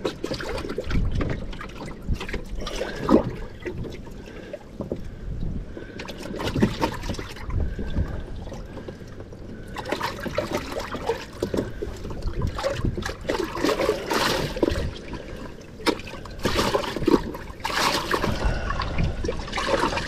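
Water trickling and sloshing in a bass boat's open livewell, with scattered knocks from handling on the deck.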